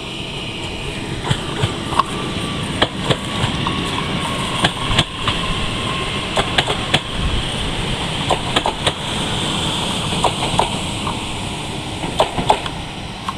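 Newag Impuls electric multiple-unit passenger train passing close by: a steady rumble and hiss of wheels on rails, broken by many irregular sharp clacks as the wheels run over rail joints and points.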